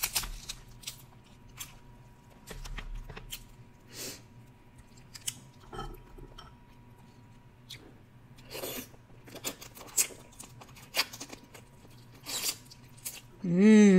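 Dungeness crab shell cracked and pulled apart by hand, then the crab meat chewed close to the microphone: irregular crackles, snaps and wet clicks.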